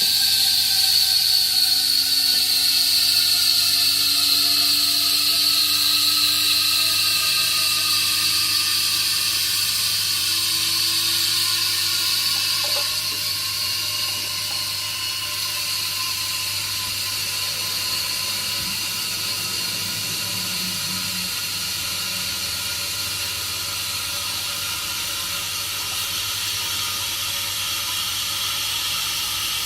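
Breville Oracle's steam wand frothing milk in the jug on its automatic setting: a steady hiss with a high whistling squeal whose tones slowly shift in pitch. It gets a little quieter about halfway through, then holds steady.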